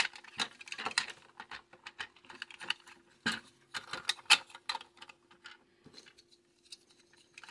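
Hard plastic toy parts being handled and fitted together: a run of irregular clicks, taps and light scrapes, thinning out after about five seconds.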